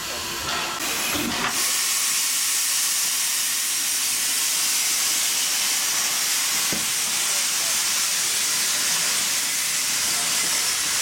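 LBSCR Stroudley Terrier 0-6-0 tank locomotive blowing off steam: a loud, steady hiss that sets in about a second and a half in and keeps going.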